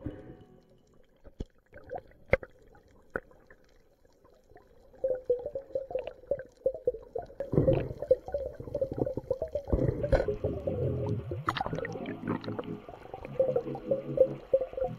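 Muffled underwater water sounds picked up by an action camera in its waterproof housing. Scattered sharp clicks come in the first few seconds. From about five seconds in, a louder busy churn of water movement and gurgling follows as the diver swims down over the reef.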